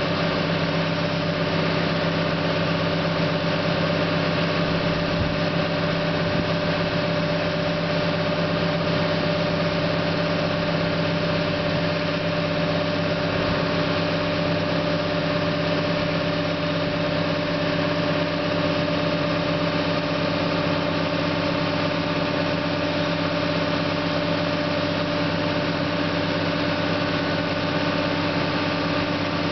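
CAT hydraulic excavator's diesel engine running at a steady speed, a constant hum with several steady tones, while the boom and bucket make slow, fine movements.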